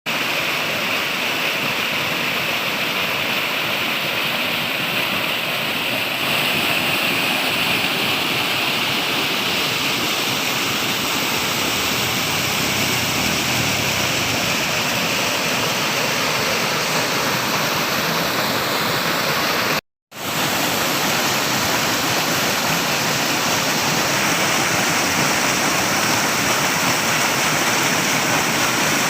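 Flowing water rushing steadily, as from a stream or small waterfall. The sound cuts out for an instant about two-thirds of the way through, then resumes unchanged.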